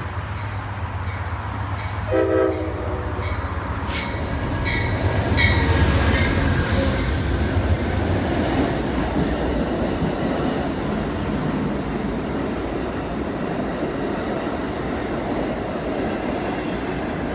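Amtrak passenger train passing through a station behind a diesel locomotive: a short horn blast about two seconds in, then the locomotive's rumble is loudest as it goes by around six seconds in. After that comes the steady rumble and wheel clatter of the coaches rolling past.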